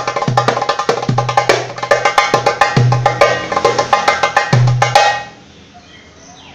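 Darbuka (goblet drum) played solo: a fast run of sharp, crisp edge strokes with a deep, ringing doum stroke in the centre of the head now and then. The playing stops abruptly about five seconds in.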